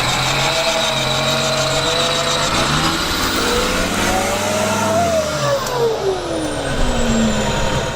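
Off-road vehicle engine revving, its pitch climbing and then falling away over the last few seconds.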